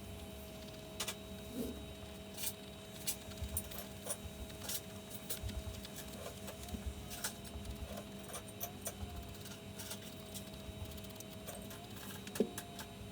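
Vevor 780 W flex shaft grinder running steadily, its motor tone sagging briefly in pitch several times as the bit is pressed into the wood, with irregular clicks and scrapes of the bit working the carving; the sharpest click comes near the end.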